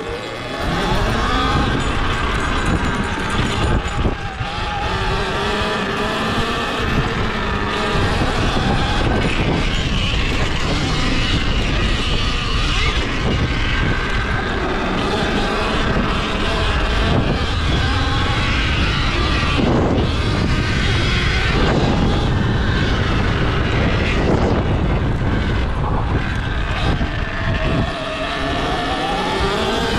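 Surron Ultra Bee electric dirt bike being ridden over a dirt track: the electric motor's whine rises and falls in pitch with the throttle, over a heavy, steady low rumble from the ride.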